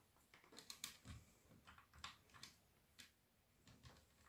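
Near silence broken by faint, scattered clicks and taps as hands handle the wiring and test leads of a plastic project box.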